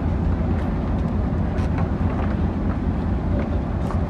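Steady low rumble of a moving vehicle, with a few faint ticks over it.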